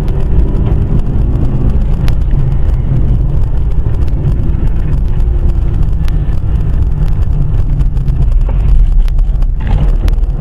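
Car driving along a road: a steady, loud rumble of engine and tyres heard inside the cabin through a dashcam's microphone, with a few faint clicks.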